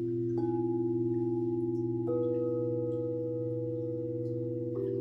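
Singing bowls struck three times, about half a second in, about two seconds in and near the end. Each strike adds a new ringing tone over the bowls already sounding, so the tones overlap and one wavers slowly.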